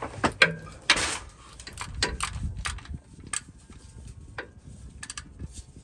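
Scattered, irregular metal clicks and knocks from a wrench on the 15 mm bolt of the transmission cooler line bracket as it is fitted and tightened, with a louder scrape about a second in.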